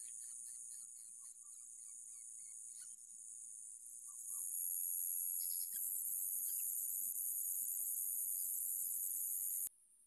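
Shrill, high-pitched insect chorus, a steady drone that swells louder about halfway through and cuts off abruptly near the end.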